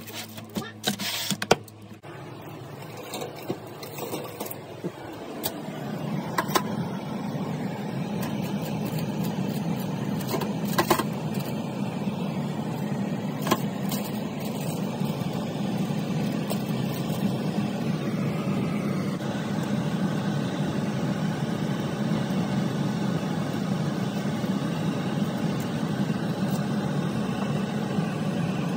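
A steady low mechanical hum, like a fan or motor, that comes up over the first several seconds and then holds evenly. Crinkling and clicks of aluminium foil sound in the first two seconds, and a few sharp clicks follow later as the foil is handled.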